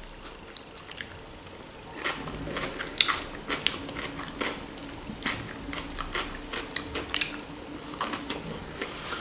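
A person chewing food close to the microphone: crisp crunches, such as fresh cucumber salad gives, and short wet mouth clicks scattered throughout, with a bite into a boiled sausage near the end.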